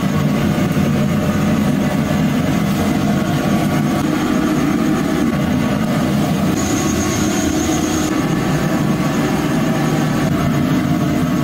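Steady roar of the gas burner under a large kadhai of frying oil, with the hot oil sizzling as battered potato slices are dropped in. A faint high steady whine joins a little past halfway.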